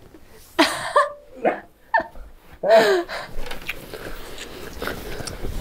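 A person's wordless vocal sounds: four short breathy cries or gasps. The last and loudest, about three seconds in, falls in pitch. After it comes a low, steady background hiss.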